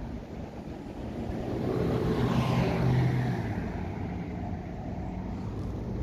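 A motor vehicle driving past, swelling to its loudest about two to three seconds in with its pitch falling as it goes by, then fading.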